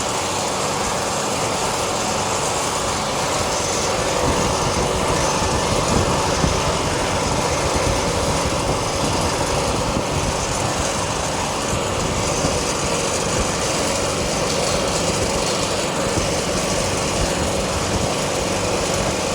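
Commercial freezer's newly fitted 4 hp Copeland semi-hermetic compressor running steadily, the system charged with R404A refrigerant.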